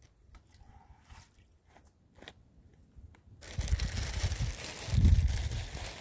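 Fresh green leaves rustling and crunching as they are handled in the hands. It starts suddenly about three and a half seconds in, after a quiet stretch with a few faint clicks, and comes with low thuds.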